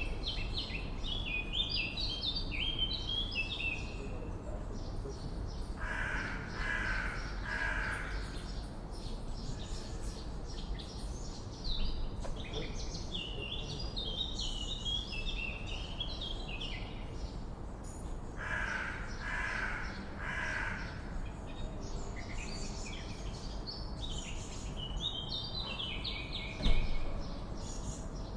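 Swallows twittering in bursts of rapid, high chatter, alternating with a crow cawing three times in a row, twice, over a steady background hiss. A single short thump near the end is the loudest moment.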